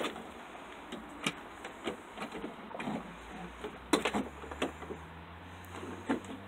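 Scattered knocks and clatters of a boat's solar-panel canopy frame being handled, its front posts set into their brackets; the sharpest knock comes about four seconds in. A low steady rumble comes in past the middle.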